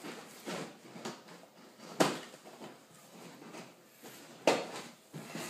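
A cardboard box and its packaging being handled: scraping and rustling, with two sharp knocks, about two seconds in and again about four and a half seconds in.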